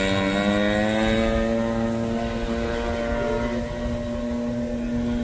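Radio-controlled model airplane's engine and propeller running steadily, the pitch rising a little over the first second or two and then holding.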